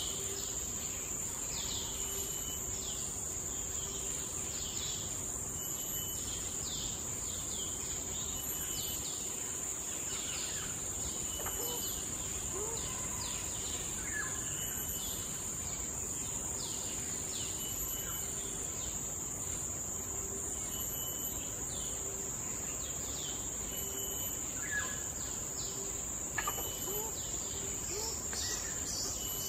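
Forest ambience: a steady high-pitched insect drone, with birds calling over it in repeated short notes that slide downward, and a low note repeating steadily underneath.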